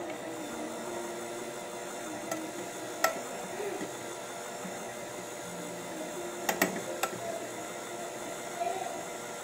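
KitchenAid electric hand mixer running steadily, its twin beaters whipping fresh cream in a bowl until it thickens. A few sharp clicks cut through the hum, one about three seconds in and three close together around six to seven seconds in.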